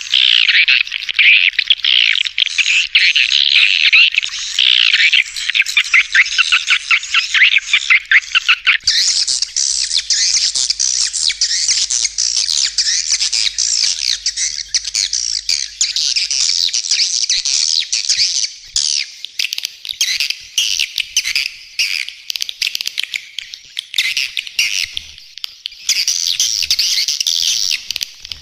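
Recorded swiftlet colony calls: dense, continuous chattering and twittering of many swiftlets, made as a lure sound to draw swiftlets to a nesting house. The chorus changes character about a third of the way in and again near the end, as one recorded section gives way to the next.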